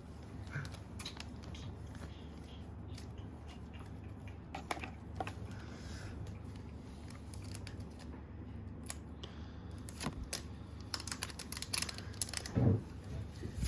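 Pokémon trading cards and a foil booster-pack wrapper being handled: scattered small clicks and rustles, with a quick run of them near the end, over a steady low hum.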